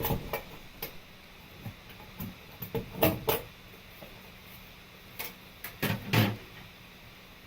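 Bathroom exhaust fan running with a faint hum and irregular clicks and knocks, the hesitating noise of a weak fan whose fan blades are later found to be the fault.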